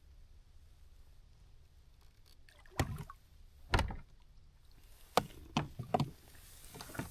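A run of irregular knocks and thumps, about seven, the loudest about four seconds in. They come as a hooked bass is fought to the boat and landed.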